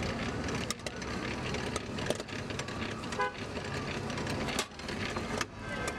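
Steady street traffic noise with a short vehicle horn toot about three seconds in, and a few sharp clicks scattered through.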